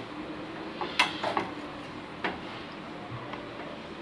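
A metal serving spoon tapping lightly against the cooking pan and a plate while curry is ladled out: one sharper click about a second in, two smaller ones just after, and another a little past two seconds.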